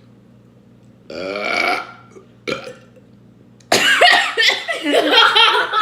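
Burping after gulps of fizzy soda: one pitched burp about a second in, a short one after it, then a louder, longer run of burping from about two-thirds of the way through.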